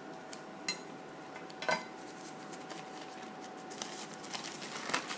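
Steel scissors snipping through a plastic mailer bag: a few sharp metallic clicks, about a second apart near the start and again near the end, between them the light crinkle of the plastic, over a faint steady hum.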